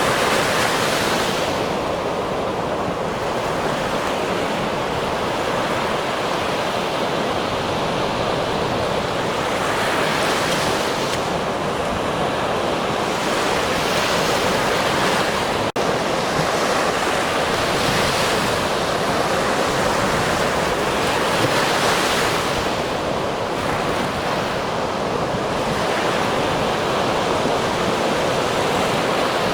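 Ocean surf: waves washing in steadily, with a rush of breaking water swelling up every few seconds. A momentary dropout comes about halfway through.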